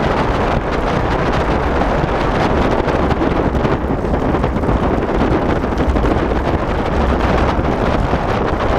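Steady wind buffeting the microphone, with a low rumble underneath.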